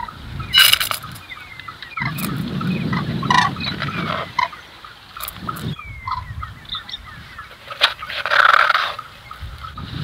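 Domestic fowl calling, two louder calls standing out, one about half a second in and one lasting about a second near the end, over a steady chatter of small birds chirping.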